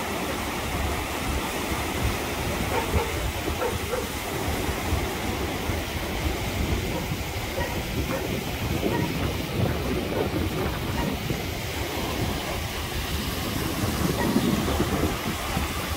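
Fast-flowing floodwater in a swollen river rushing steadily, a loud continuous roar of water with a rough low rumble.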